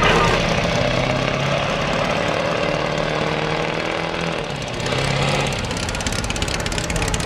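Custom dune buggy's rear-mounted engine running steadily as the buggy pulls away slowly, with a brief rise in level about five seconds in.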